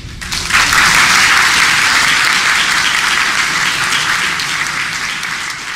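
Audience applauding at the end of a talk: the clapping starts about half a second in, stays loud and steady, and slowly fades toward the end.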